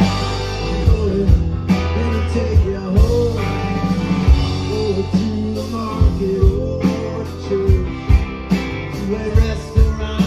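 Rock band playing live: acoustic and electric guitars, electric bass and a steady drum beat, with a lead line bending up and down in pitch over them.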